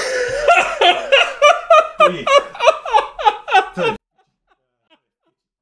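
A man laughing in excited, rapid pulses, about four a second, breaking off abruptly about four seconds in.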